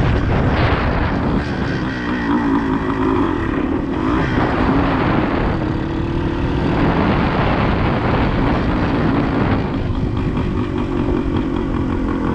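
Suzuki TS400 Apache single-cylinder two-stroke dirt bike engine running under the rider, its note shifting several times with the throttle. It runs more evenly in the last couple of seconds as the bike rolls slowly.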